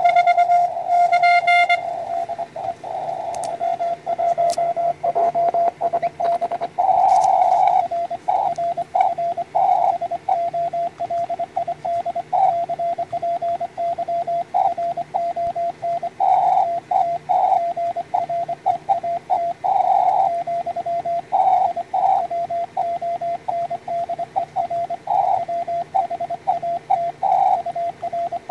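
Morse code (CW) from a customized SW20 QRP transceiver on the 20-metre band: a single-pitch tone keyed on and off in dots and dashes over faint band hiss. For the first two seconds the tone is louder and harsher, then it goes on softer.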